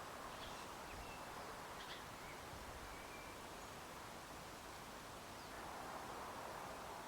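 Faint, steady background rush with a handful of short, faint high bird chirps scattered through it.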